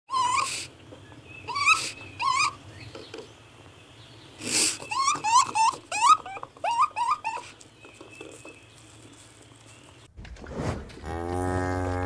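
A string of short, high chirping calls, each bending up and down in pitch, over the first seven seconds or so. Near the end a cow begins a long, low moo.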